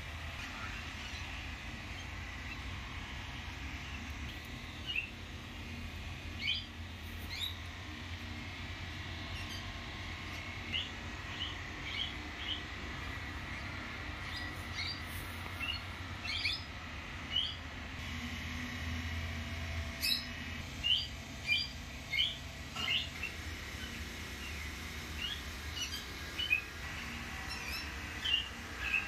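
Small birds chirping in short, scattered calls, several in quick succession around the middle and again near the end, over a steady low hum.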